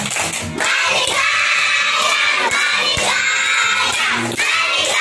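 A group of young children singing together loudly in long held phrases, clapping along.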